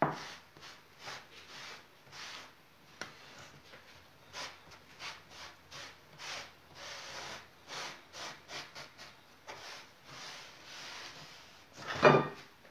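Plastic-gloved hands rustling and rubbing as they shape minced-meat patties on a wooden board, in short irregular scraping strokes with pauses between. A sharp knock right at the start and a louder thump about twelve seconds in.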